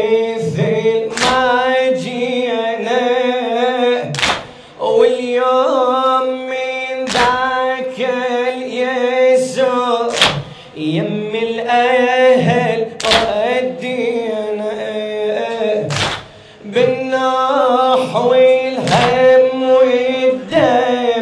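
Arabic Shia lament (latmiyya) chanted in long, held, wavering notes. A steady beat of sharp thuds falls about once a second, with a stronger one every third beat, typical of chest-beating (latm) keeping time with the lament.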